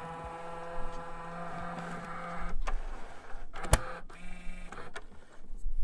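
Mechanical whirring and hum of a VCR-style tape-mechanism sound effect, broken by sharp clicks, the loudest a little before four seconds in.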